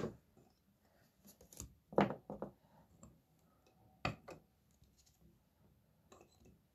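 Hard plastic card cases being handled and set into plastic display stands on a tabletop: a few light clicks and taps. The loudest come about two seconds in, with others at the start and about four seconds in.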